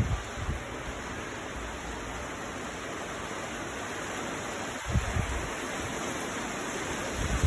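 Heavy rain falling as a steady hiss, with a few short, low thumps: one at the start, one about five seconds in and a louder one at the end.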